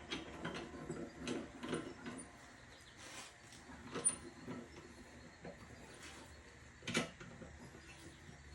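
Manual tire-changing tools working a tractor tire onto its rim: intermittent metal scraping and rubbing, with clanks, the sharpest one about 7 seconds in.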